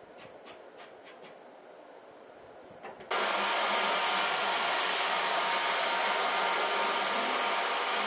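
Shop vacuum switched on about three seconds in, then running steadily with a whine as its hose nozzle is worked over the tabletop. A few light clicks and taps come before it starts.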